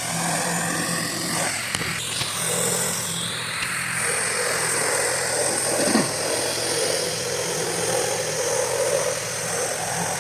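A 4 gpm pressure washer running steadily: an even engine drone under the broad hiss of water spraying.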